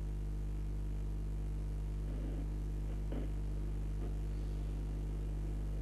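Steady low electrical hum on the audio feed, with faint, brief traces of voices about two and three seconds in.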